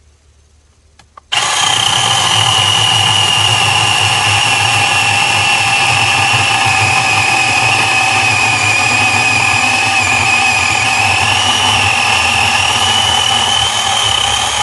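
OSUKA OCMC-6S1 cordless electric pruning chainsaw starting suddenly about a second in, then running at full speed with a loud, steady high whine. Its pitch sags slightly in the middle as the chain cuts through a branch about six inches thick.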